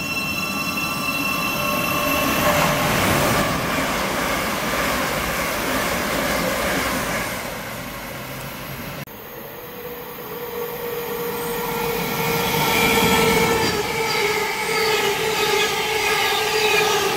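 Electric multiple-unit trains running through a station: a rush of wheels on rail in the first half. Then, after a sudden break, a steady multi-tone electric whine grows louder as a Thameslink Class 700 unit passes close by.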